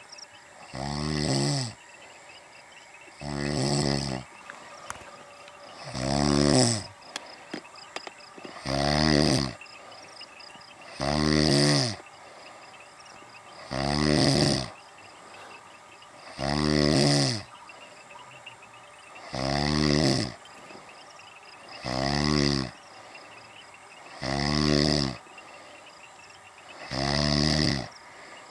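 A woman snoring in her sleep: a long, pitched, rattling snore on each breath, repeating evenly about every two and a half seconds.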